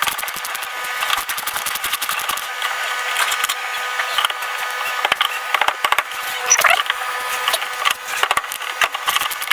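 Fast, irregular clicking and ticking of a 10 mm wrench working loose the bolts that hold an electric scooter's windshield.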